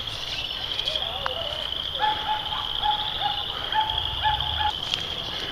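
Crickets trilling steadily, with a bird calling in a run of about eight short clear notes from about a second in until shortly before the end.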